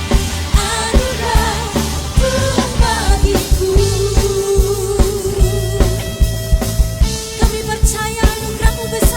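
Live church worship band playing, with drums keeping a steady beat under a sung melody that bends through the first few seconds and then holds one long note.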